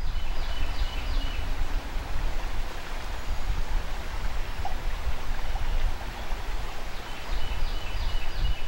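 River water flowing, with wind rumbling on the microphone. A short run of high chirps comes twice, near the start and near the end.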